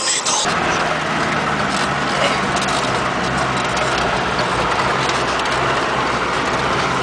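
A brief snatch of music cuts off about half a second in. From then on a vehicle's engine runs steadily under tyre and road noise, heard from inside the cabin while driving a dirt track.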